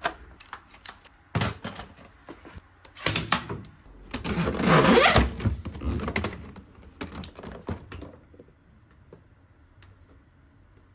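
A run of irregular clicks, knocks and rustling handling noises, the loudest burst about four to five seconds in, fading to quiet room tone after about eight seconds.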